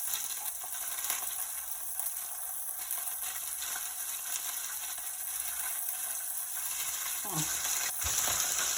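Whole red snapper frying in hot oil in a pot: a steady sizzle. A short knock comes near the end.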